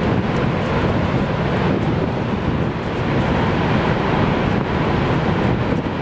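Horseshoe Falls at Niagara, a massive curtain of water plunging into the gorge: a loud, steady, low-pitched rush of falling water.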